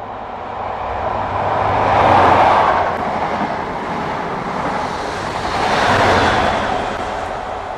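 High Speed Train with Class 43 diesel power cars passing at speed. The noise swells as the leading power car goes by about two seconds in, stays up while the coaches run past, and swells again as the trailing power car passes near the end.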